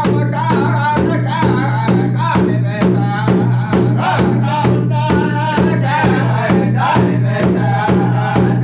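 Powwow drum group singing: a large hide powwow drum struck in unison with drumsticks at a steady beat of a little over two strokes a second, under group singing with high, wavering voices.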